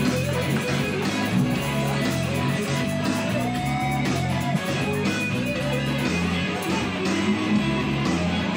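Live band playing, with an electric guitar over a steady, rhythmic bass line.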